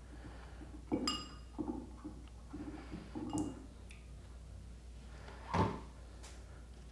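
A wet ball is lifted out of a bowl of water, with handling and splashing sounds and a couple of sharp knocks against the bowl that ring on briefly about a second in. There is one louder thud about five and a half seconds in.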